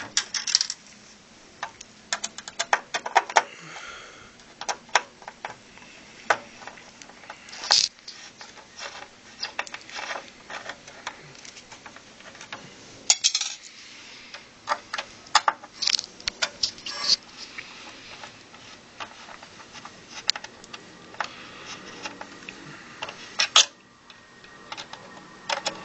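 Hand tools and small 4-40 Allen-head screws clicking and clinking against metal as a circuit board is unscrewed and lifted out of an equipment chassis; irregular sharp taps and jingles, with several louder clinks.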